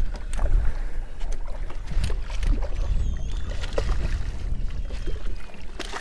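Wind buffeting the microphone in a steady low rumble, with scattered small splashes and clicks as a hooked redfish thrashes at the water's surface beside the boat.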